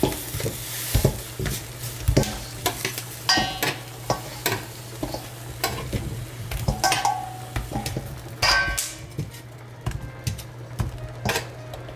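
Metal tongs clicking and scraping as charred onions and ginger pieces are picked off a glass-ceramic cooktop and dropped into a stainless steel bowl. Scattered clanks and thuds, a few with a short metallic ring, over a steady low hum.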